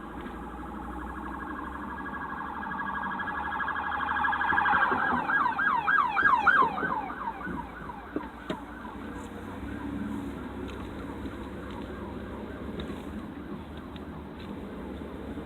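Emergency vehicle siren in a rapid yelp, growing louder, loudest about six seconds in, then fading away within a couple of seconds. A steady low traffic rumble runs underneath.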